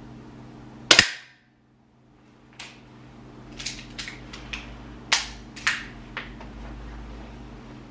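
A single shot from an airsoft target pistol about a second in: one sharp crack. It is followed by a string of lighter clicks and clacks as the pistol is lowered and handled.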